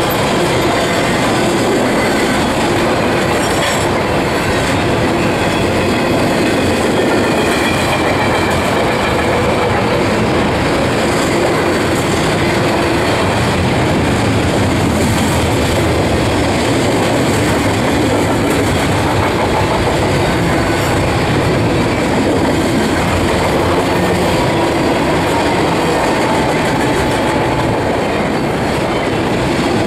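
Double-stack intermodal well cars rolling past close by: a steady rumble and rattle of steel wheels on rail, with a faint squeal rising briefly a couple of times.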